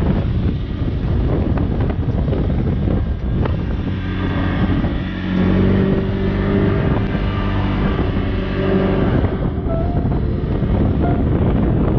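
ATV engine running as the quad rides along, with wind buffeting the microphone; the engine note stands out most clearly from about four to nine seconds in.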